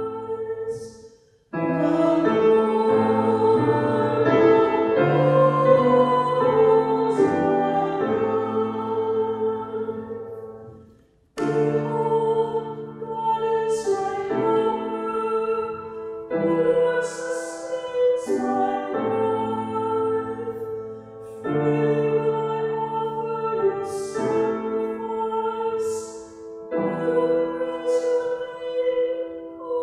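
Responsorial psalm sung by a single cantor with piano accompaniment, in long held phrases with short pauses about a second and a half in and about eleven seconds in.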